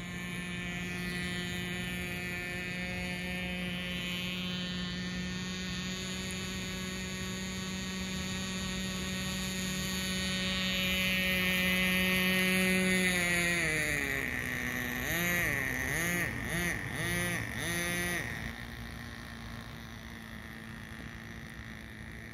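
Nitro RC speedboat's small glow-fuel two-stroke engine running with a steady high-pitched whine, growing louder over the first dozen seconds. About 13 seconds in, the pitch drops, then warbles up and down several times before settling into a quieter, steady drone near the end.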